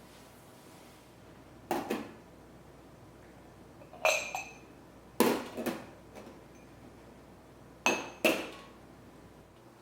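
Kitchenware clinking and knocking as it is handled and set down: about seven sharp clinks in loose pairs, a few ringing briefly.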